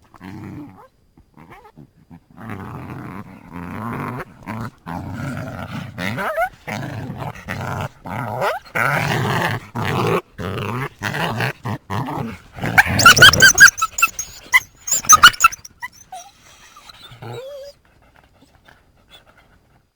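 Coyote growling and snarling in rough, broken bursts for about ten seconds. Then a run of loud, high-pitched yelps starts about thirteen seconds in, and the sound dies away near the end.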